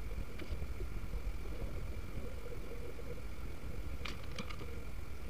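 Steady low rumble with a faint steady hum, then a quick cluster of three or four small sharp clicks about four seconds in: a screwdriver and a plastic plug being handled while a cord is wired.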